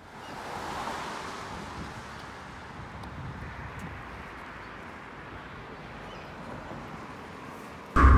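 Outdoor street ambience: a steady rushing noise that swells about a second in and then holds. Near the end a much louder low rumble, like wind on the microphone, starts suddenly.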